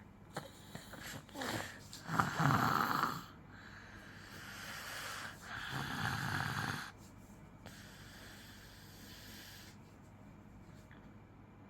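A young child snoring in sleep: two loud, rough snores about three and a half seconds apart, with quieter breathing between. It is laboured breathing, the child sleeping with difficulty.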